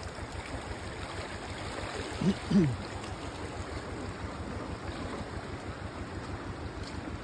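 Fast-flowing floodwater rushing in a steady wash. About two seconds in, a short pitched sound rises and falls twice.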